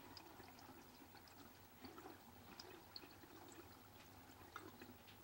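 Very faint trickling water, with scattered small drips.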